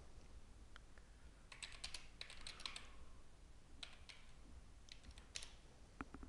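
Faint typing on a computer keyboard: quick runs of keystroke clicks in a few short bursts, with a single keystroke near the end.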